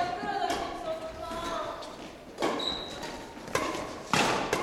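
Badminton rackets striking a shuttlecock three times in a rally, sharp smacks about a second apart that echo in a large sports hall.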